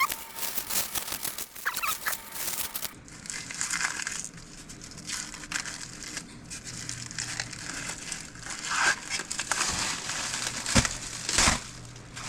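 Packaging being torn open and crinkled as a new aftermarket exhaust is unwrapped: irregular rustling and crumpling, with two sharper tearing sounds near the end.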